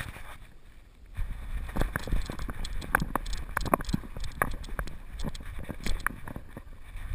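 Irregular knocks and clicks with low thumping from a GoPro HD Hero2 strapped to a dog's back, jostled and rubbed as the dog moves, starting about a second in.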